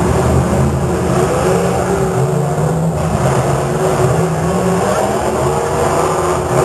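Several demolition derby cars' engines running and revving at once, a loud steady din of overlapping engine notes rising and falling.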